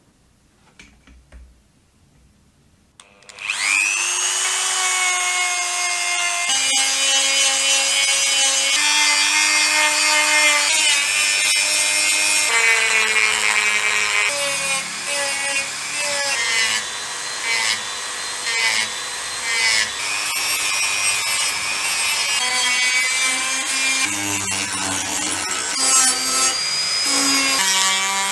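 Handheld rotary tool starting up about three seconds in, its whine rising in pitch as it spins up, then running while sanding and grinding a metal casting with a sanding drum. Its pitch dips and shifts repeatedly as the bit is pressed into the metal.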